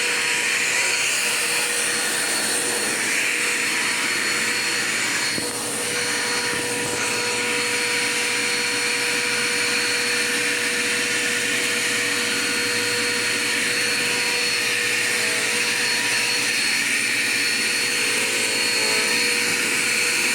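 Dirt Devil Quick Power vacuum cleaner running steadily, a constant whine over rushing air, with a brief dip in level about five seconds in.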